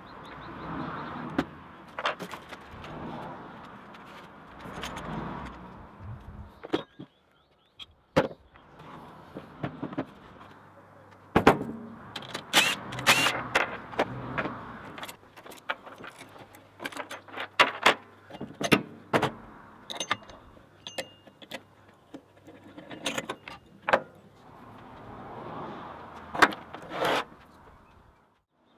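Tools and plastic and metal parts clicking, knocking and clinking on a workbench as a petrol brushcutter and a petrol chainsaw are taken apart: a screwdriver working, covers lifted off, nuts and parts set down. The knocks come irregularly, with the sharpest around the middle and near the end.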